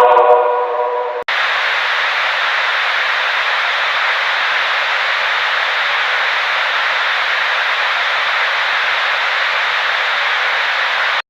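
A held musical chord fading, cut off about a second in by steady hissing static like a TV channel gone off the air. The static holds at one level, then stops abruptly near the end.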